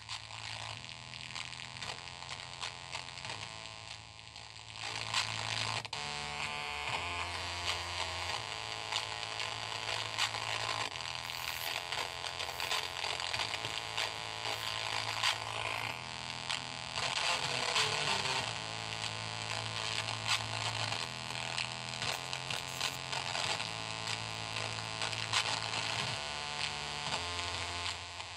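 Music sent over a 433 MHz ASK transmitter and superheterodyne receiver module pair and played through a small amplifier and loudspeaker, coming out as a hissy, humming, distorted version with only the low notes plainly changing. It gets louder about five seconds in. The poor sound shows that these on-off data modules are not good at carrying music.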